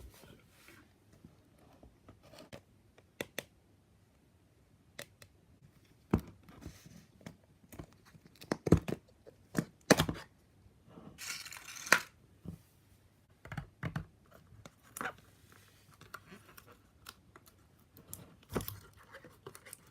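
Hands working a store-bought slime: irregular sticky clicks and pops, with a short tearing, crinkling stretch about halfway through.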